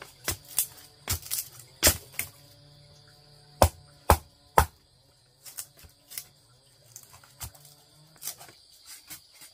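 A series of sharp, irregular chopping knocks, about a dozen, loudest in the first five seconds and lighter after. Insects chirr steadily behind them.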